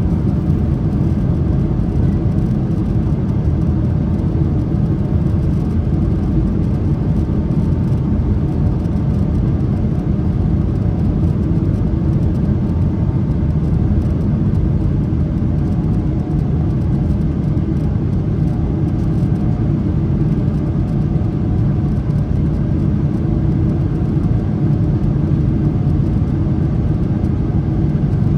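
Steady cabin rumble of a Boeing 777-300ER, engine and airflow noise heard from inside the cabin, even and unchanging in level.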